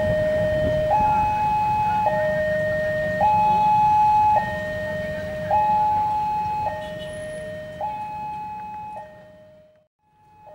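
Railway level-crossing alarm sounding its electronic two-tone warning, a low note and a higher note alternating, each held about a second, while the barrier is down for an approaching train. It fades away near the end.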